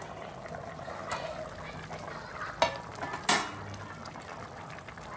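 A metal pot lid sliding off and clinking a few times against the rim of the pot, over the low bubbling of a simmering fish curry.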